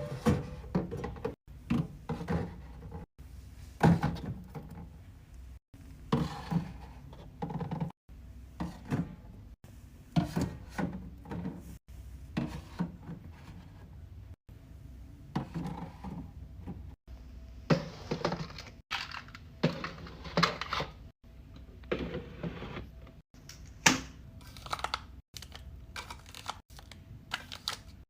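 Drinks and snacks being handled and set onto the shelves of a mini fridge being restocked, making a run of short knocks, clunks and clicks, one or several every second, with brief cuts between them.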